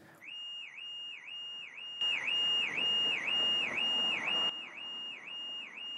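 Car alarm sounding: a high electronic tone that dips and snaps back up in a rapid repeating whoop, about three times a second, louder for a couple of seconds in the middle.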